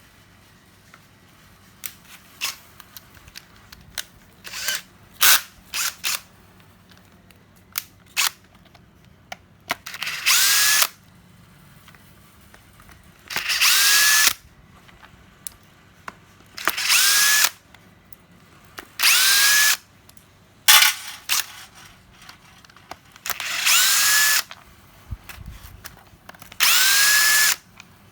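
Cordless power tool triggered in six short runs of about a second each, every run starting with a rising motor whine, with scattered clicks and taps of handling between the runs.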